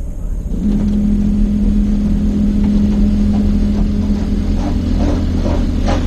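Steady low rumble of an idling car heard from inside its cabin in an automatic car wash bay. About half a second in, a steady machine hum from the wash equipment starts. Near the end, short whooshing bursts begin repeating about three times a second.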